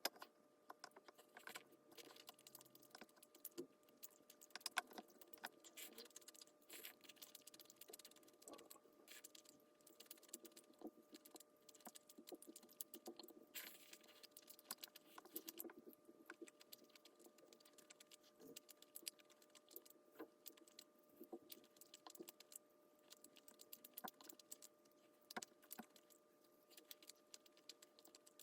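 Faint, irregular light clicking and clattering of small hard objects being handled, over a faint steady hum.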